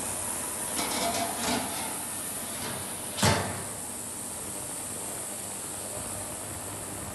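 Stainless-steel lid set down on a sous vide tank: a few light clatters as it is handled, then one sharp metallic knock about three seconds in as it lands. A steady hiss sits underneath throughout.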